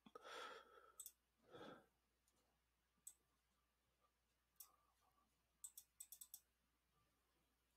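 Faint computer mouse clicks in near silence: a few single clicks spaced a second or more apart, then a quick run of about five clicks near the end. Two soft breathy sounds come early on.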